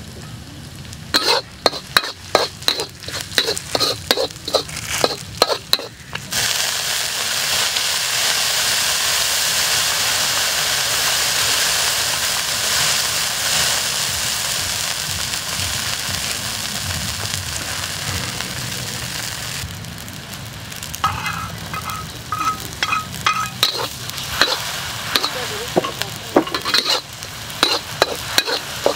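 Garlic, chili and lemongrass frying in a carbon-steel wok over a wood fire. A metal spatula clinks and scrapes against the wok in quick strokes at the start and again for the last eight seconds or so. In between is a steady, loud sizzle.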